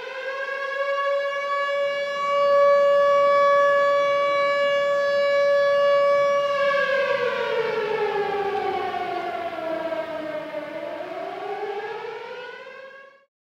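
Air-raid siren wailing: the tone rises and holds steady for several seconds, slides down about halfway through, then climbs again before cutting off suddenly near the end, the rise and fall of an air-raid warning.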